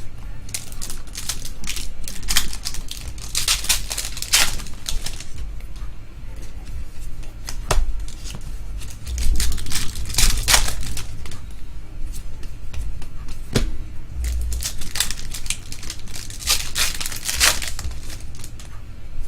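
Foil trading-card pack wrappers crinkling and tearing as packs are ripped open and the cards handled, in bursts of crackly rustling every few seconds.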